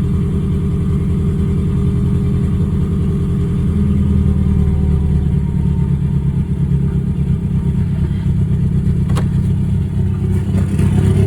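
Ford Focus engine running at idle with a misfire, which the tuner reads as cylinder 3; the owner suspects the recently changed spark plugs or fuel injectors, or the timing. It gets a little louder about four seconds in.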